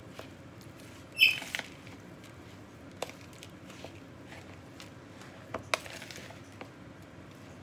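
Hands kneading a wet croqueta mixture of ground ham, egg and breadcrumbs in a plastic bowl: soft squishing and patting, with a few sharp clicks and a short high squeak about a second in, the loudest sound.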